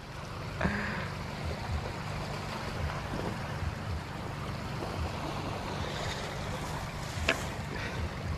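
Wind rumbling on the microphone over small waves lapping in shallow water at the shore, steady throughout, with one short sharp tap near the end.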